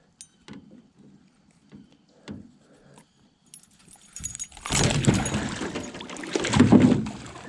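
A few light clicks and knocks of tackle being handled, then about four seconds in a loud, irregular thrashing: a freshly caught northern pike flopping in the landing net against the boat.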